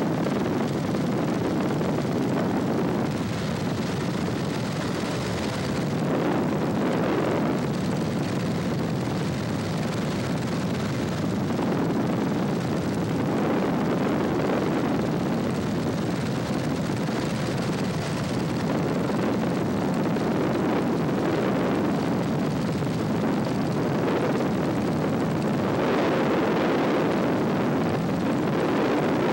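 A 1966 Cessna 150's four-cylinder Continental O-200 engine and propeller droning steadily in cruise, heard from inside the airplane. A windy hiss swells and fades every few seconds over the drone.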